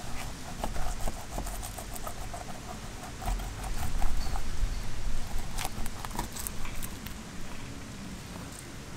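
Curved boning knife cutting through the scales and skin of a mutton snapper behind the head, a quick run of small scraping clicks that grows louder and denser midway, with wind rumbling on the microphone.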